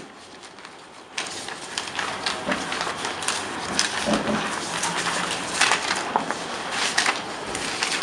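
Sheets of paper rustling and pages being turned: a run of quick crinkles and flicks that starts about a second in.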